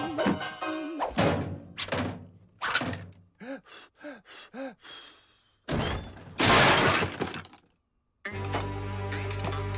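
Cartoon slapstick sound effects: a run of thuds and clatters, then four short rising-and-falling tones, then a loud crash of a stove, kettle and ironing board tumbling over about six seconds in. Music with a steady bass starts near the end.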